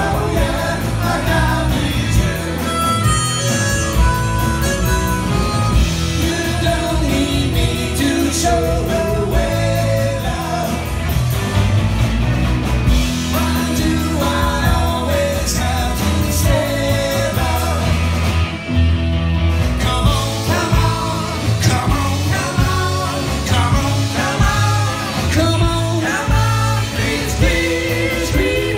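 Live rock band playing: electric guitars and drums with a lead singer's vocals.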